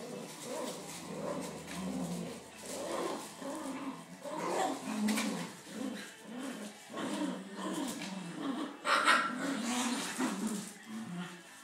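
Scottish Terrier puppies and their mother growling and yipping in play, in many short bursts, with one sharper, louder yelp about nine seconds in.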